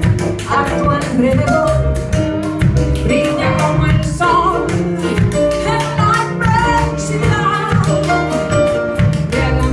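A woman singing a song live into a microphone, backed by a small band with drum kit and keyboard.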